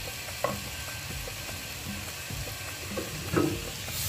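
Wooden spoon stirring sautéing tripe and onions in a clay tagine, with a low sizzle of frying in oil and a few knocks of the spoon against the pot, the loudest about three and a half seconds in.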